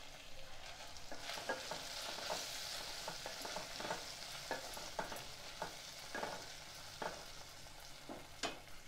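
Drumstick pieces, okra and onion sizzling in oil in a stainless steel pot, stirred with a wooden spatula that scrapes and knocks against the pot about a dozen times. The hiss of the frying is strongest in the first half.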